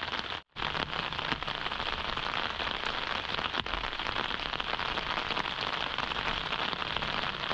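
Steady rain pattering, a dense even crackle with no pause except a brief dropout about half a second in.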